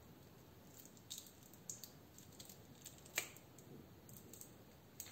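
Scattered light clicks and taps of small decorations against a ceramic dish as glitter, sequins and plastic pearls are sprinkled in, with one sharper click about three seconds in.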